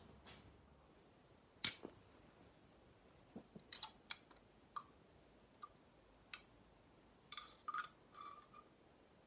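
Aluminium drink can and metal straw being handled: a loud sharp click about one and a half seconds in, then scattered small clicks and light metallic taps as the ring-pull is worked and the straw knocks against the can.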